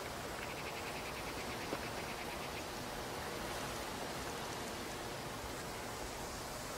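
Steady, even background hiss of outdoor ambience, with a faint rapid pulsing for about two seconds near the start.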